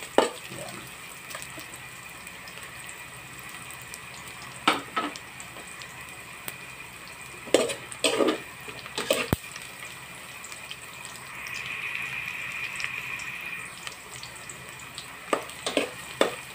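Garlic and onion sautéing in hot oil in a stainless-steel pot, a steady sizzle that swells briefly a little past the middle. A metal spoon scrapes and clinks against the pot now and then, with one sharp click about nine seconds in.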